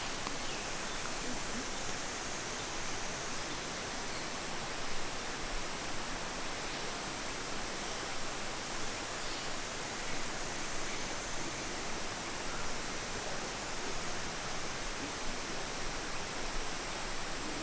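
Steady, even rush of falling water from a large waterfall, unbroken throughout.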